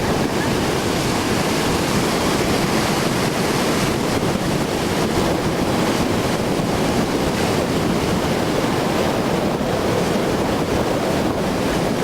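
Rough storm surf breaking on a beach, with gale-force wind buffeting the microphone: a steady, unbroken wash of noise.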